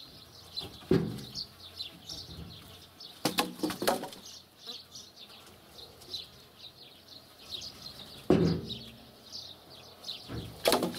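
Birch logs thrown down from a truck bed land on a log pile with wooden knocks, about five of them at uneven intervals, the later ones loudest. Small birds chirp continually behind them.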